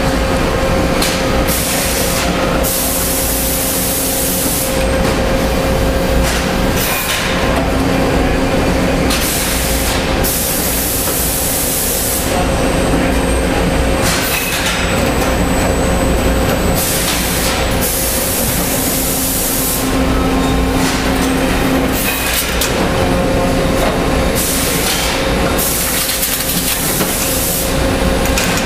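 Samuel SMSB6VK30 ingot strapping machine and its conveyor running: a steady loud mechanical hum with a held tone, broken every few seconds by short bursts of hissing lasting a second or two.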